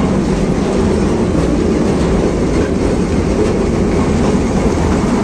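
Small park ride train running steadily along its track, heard from aboard the carriage: an even, unbroken rumble of wheels and motor.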